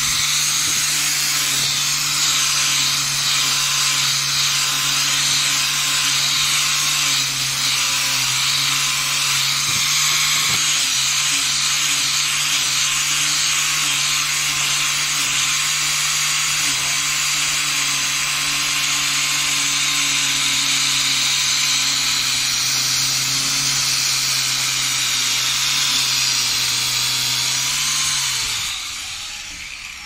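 Electric angle grinder with a copper wire cup brush running steadily, its motor hum under the dense hiss of the spinning wires scrubbing rust off a steel reinforcing bar. Near the end it is switched off and the motor winds down.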